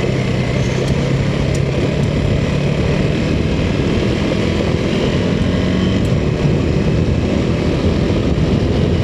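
Motorcycle engine running steadily while riding down a rough dirt track, under a dense rumble of wind and tyre noise.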